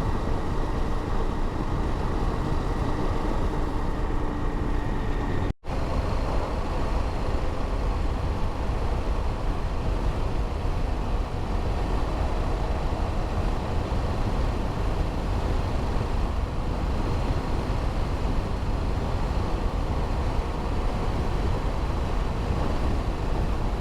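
KTM motorcycle cruising at a steady speed, heard through an in-helmet microphone: a constant rush of wind and road noise with the engine's hum underneath. The sound breaks off for an instant about five and a half seconds in.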